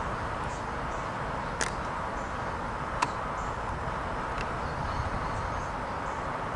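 Steady rolling rumble of a double-stack intermodal freight train's last well cars passing away along the track, with two sharp clicks, the second about three seconds in the louder.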